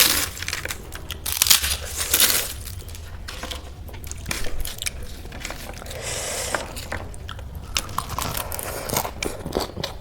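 A person eating: loud bites and crunches of crisp food in the first couple of seconds, then quieter chewing with small clicks.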